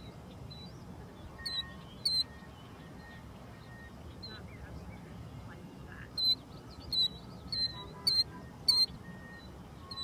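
Killdeer giving short, sharp, high-pitched calls: two about a second and a half in, then a run of five from about six seconds in, over a faint outdoor background with softer birdsong.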